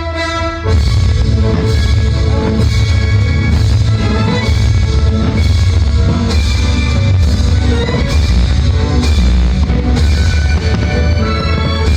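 Loud music with a steady drum beat. A held orchestral chord gives way less than a second in to a driving, rock-style track.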